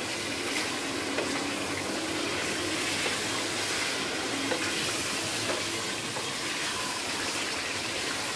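Chicken karahi sizzling and bubbling in a hot pan just after stock is poured in, with a spatula stirring through it. A steady hiss with a few faint ticks.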